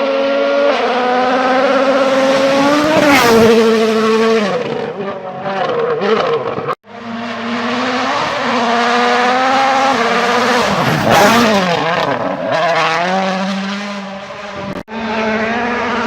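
Rally cars at full throttle, engines revving up and dropping back between gear changes, with a sweeping fall in pitch as a car passes close by. The sound cuts off abruptly twice, a couple of seconds apart, as one car's run gives way to the next.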